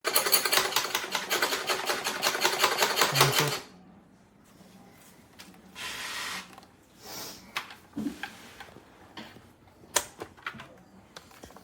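A fast, even mechanical clatter lasting about three and a half seconds, which stops abruptly, followed by a few light scattered clicks and knocks.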